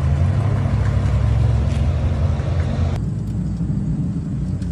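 Performance car engine running at low revs, a low, steady exhaust note; about three seconds in the higher hiss drops away suddenly, leaving the low engine sound.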